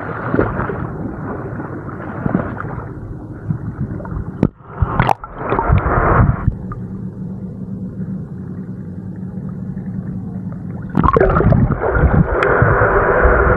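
Water sloshing and splashing against a camera held at the waterline. About six seconds in the sound turns muffled and gurgling as the camera goes underwater, and it gets loud and splashy again near the end.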